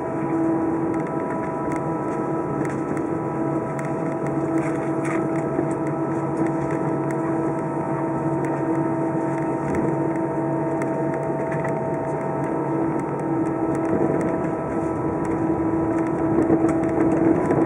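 Airbus A319 taxiing, heard from inside the cabin: the steady drone and whine of its jet engines at low taxi power, with light cabin rattles. The sound swells slightly near the end.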